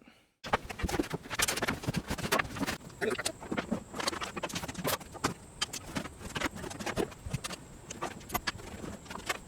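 Irregular clattering and knocking of a wheeled work table and the assorted items on it being rolled and unloaded by hand: many quick clunks and rattles, some louder than others.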